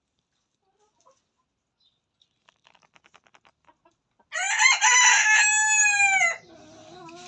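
A rooster crowing once, loud, about four seconds in and lasting about two seconds, its last note falling in pitch. Faint light ticks come before it and fainter lower calls after it.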